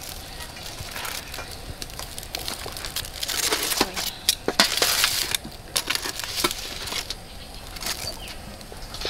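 Metal tongs clicking and scraping against whole grilled fish, a wire grill and a stainless steel tray as the fish are lifted off the charcoal and set down: a run of sharp clicks and knocks, with a longer rustling scrape about three to five seconds in.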